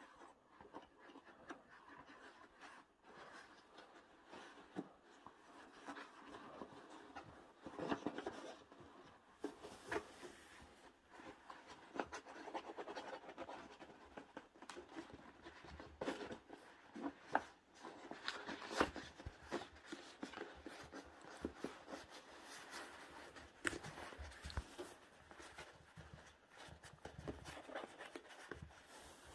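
Kittens pawing and clawing at the pages of a paperback book: faint, irregular paper scratching and rustling.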